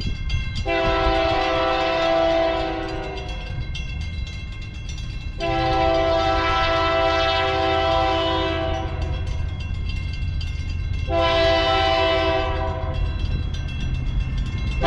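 San Joaquin Valley Railroad freight locomotive's chord horn sounding the grade-crossing signal: two long blasts and a short one, with the final long blast starting right at the end, each a chord of several notes held steady. A low engine rumble runs underneath as the train approaches the crossing.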